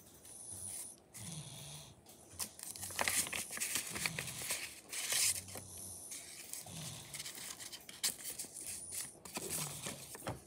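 Paper and clear tape crinkling and rustling as hand-drawn paper cutouts are handled and pulled out of a paper envelope, in irregular crackles that are loudest around the middle.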